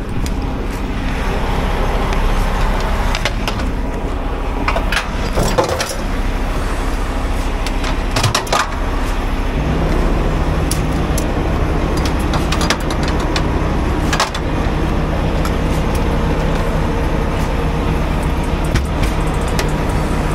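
Semi-truck diesel engine running steadily, its tone changing about halfway through, with several sharp clicks and knocks over it.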